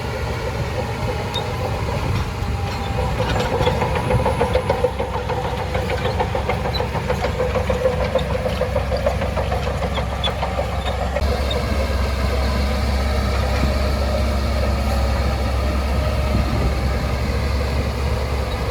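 Shantui DH17C2 crawler bulldozer's diesel engine running under load, with a wavering mechanical whine that swells for several seconds in the first half.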